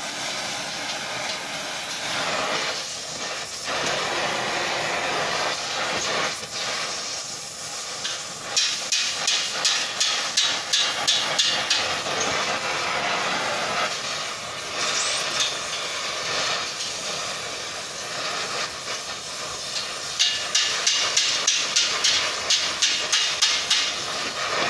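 Cutting torch flame hissing steadily as it heats a quarter-inch steel bar red-hot for wrapping into a collar. Two runs of quick light taps on the metal, about three a second, come about a third of the way in and again near the end.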